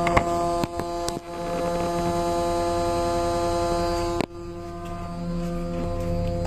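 Faulty headlight giving off an abnormal steady electrical buzzing hum, broken by a few sharp clicks; after the click just past four seconds the upper part of the buzz fades and a lower hum remains.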